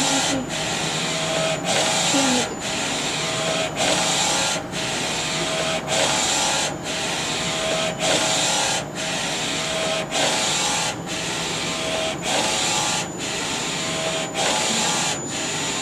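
NC-610A digital textile printer's print-head carriage (Epson DX5 head) sweeping back and forth over the shirt while printing. It makes a steady running sound that drops out briefly about once a second as the carriage turns at the end of each pass.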